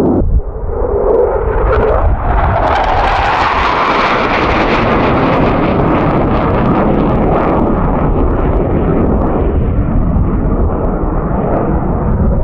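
Loud jet noise of a twin-engine F-15 fighter flying low past and climbing away, continuous throughout, with a whine that rises in pitch about two seconds in and the noise swelling around four seconds.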